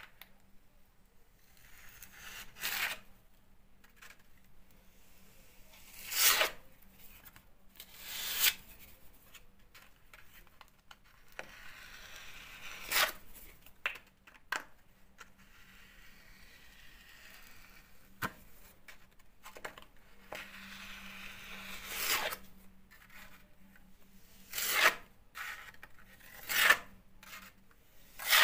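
Filling knife scraping waterproof filler along a plastered inside corner: short, rasping strokes of the blade every few seconds, with quieter rubbing between them.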